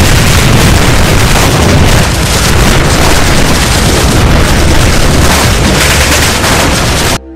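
Explosion sound effect: a loud, continuous blast and rumble that cuts off suddenly near the end.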